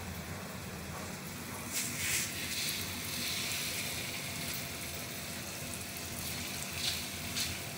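Spoonfuls of malunggay, egg and flour batter sizzling in hot oil in a wok, frying into fritters. The sizzle swells about two seconds in, and there are two sharp crackles near the end.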